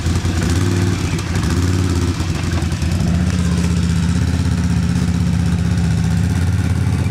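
ATV engine running steadily at low speed under light throttle while the quad is worked through a rut from beside it. Its pitch steps up a little about three seconds in and holds.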